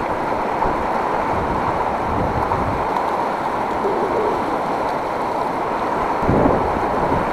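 Steady rush of river water flowing over the rapids, with wind on the microphone; a brief louder low rumble about six seconds in.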